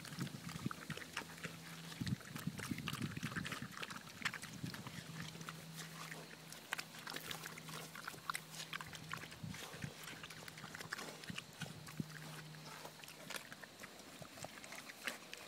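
Pigs chewing watermelon: wet crunching and smacking, many small crackles in quick succession. A faint steady low hum runs underneath for much of the time.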